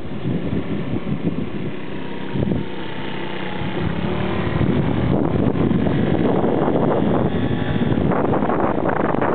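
Small motorbike engine running on the move, mixed with tyre and road noise, getting somewhat louder about halfway through. Wind buffets the microphone.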